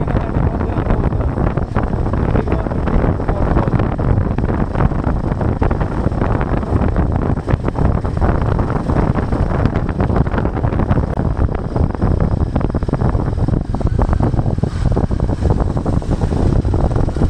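Wind buffeting the microphone on a moving motorcycle, a steady rushing noise, with the Royal Enfield Himalayan 450's engine running underneath.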